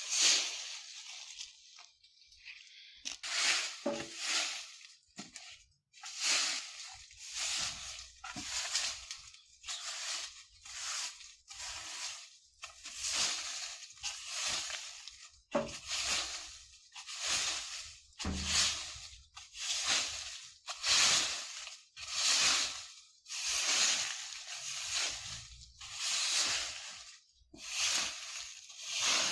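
A broom sweeping dry leaves across the ground in a steady rhythm of rustling, scratchy strokes, about one a second, with a brief pause a couple of seconds in.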